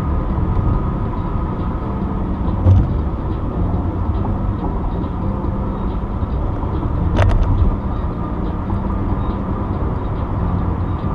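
Steady road and engine noise inside a moving car on the highway, with two brief knocks about three and seven seconds in.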